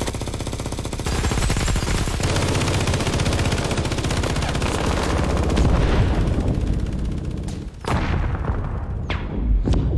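Rapid automatic rifle fire, continuous and dense, thinning out after about seven and a half seconds into a few separate loud shots.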